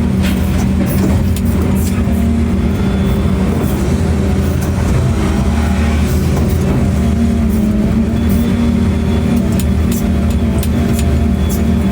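A large engine running steadily, a low even hum, with a few faint clicks and rattles over it.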